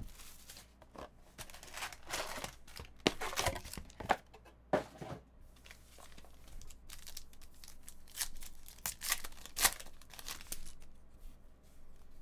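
Plastic wrap and foil trading-card pack wrappers being torn open and crinkled by hand, in a string of short, irregular rips and rustles.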